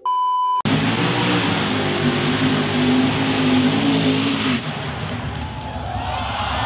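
A short steady test-tone beep, then a mud-bogging pickup truck's engine running hard at high revs, with a dense rush of spinning tyres and flung mud. The engine note cuts out about four and a half seconds in, leaving a quieter rush with rising and falling tones.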